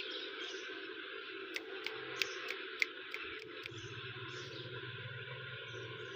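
Steady background hum and hiss, with a run of about five sharp clicks a third of a second apart in the first half and a few faint, short chirps from a ringneck parakeet.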